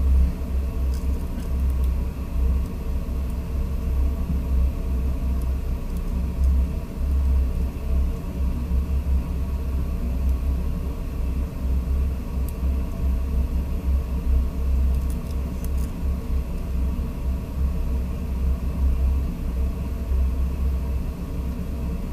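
A steady low rumble with a faint steady hum above it, and a few faint ticks past the middle.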